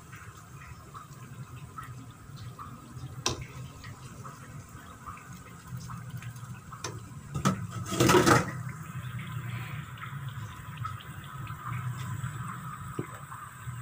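Pieces of kue bawang dough deep-frying in a pot of hot oil: a steady bubbling with faint scattered crackles. There is a sharp click about three seconds in, and a short, louder rasp about eight seconds in.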